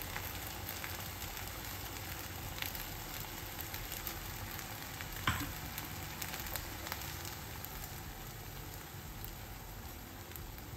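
Rice and mango puree sizzling steadily in a stainless steel pan over a high gas flame, with faint crackles as the last of the cooking water boils off. A single small click about five seconds in.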